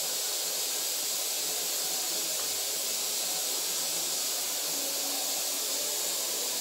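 A steady hiss at an even level.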